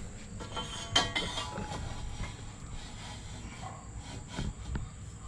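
A sharp metallic clank with a brief ring about a second in, a few smaller knocks later, and another sharp clank at the end: a steel breaker bar and socket shifting and clanking under heavy force on a seized axle nut.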